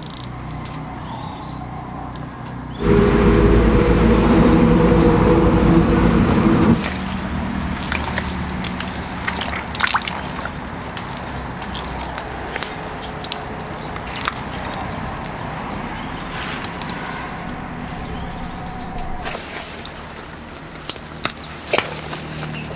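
Birds chirping over open-field ambience. About three seconds in, a loud, steady, low engine hum starts abruptly and cuts off about four seconds later. Afterwards come scattered rustles and sharp clicks as the woman works among the taro plants.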